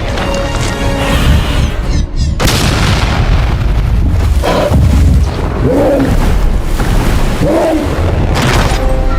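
Monster-movie action soundtrack: deep booming rumbles and impacts over music. A sudden heavy crash comes in about two and a half seconds in, and several short rising-and-falling cries follow in the second half.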